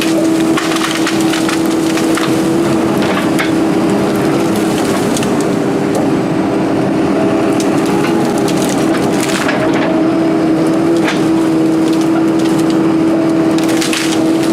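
240D excavator running steadily while its bucket and thumb crush brush and small trees, with many sharp cracks and splintering snaps of wood over the engine.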